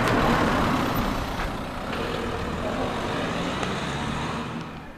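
A motor vehicle passing on the road, its engine and tyre noise loudest at first and easing off after about a second.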